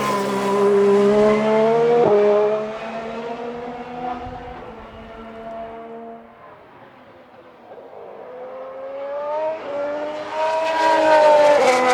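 2017 Formula One cars' turbocharged V6 engines at full throttle. One car accelerates away, shifting up about two seconds in and fading out by the middle. A second car comes in near the end, its engine note climbing through upshifts as it gets louder.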